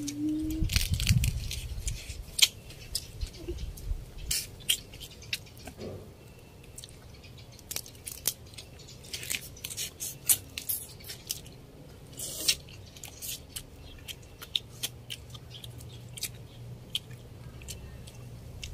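Eating sounds: chewing and smacking, with many short sharp clicks as crab shell is picked apart by hand. There are a few low thumps in the first seconds.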